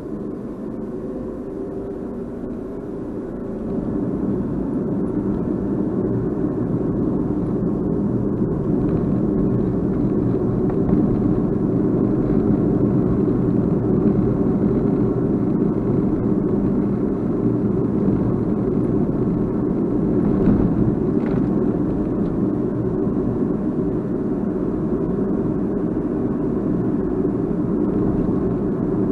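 Steady vehicle running noise picked up by a Crosstour CT8500 action camera's built-in microphone: a low rumble of motor and wind that gets louder about four seconds in and then holds. There is no abnormal noise from the camera itself; this unit is a normal one.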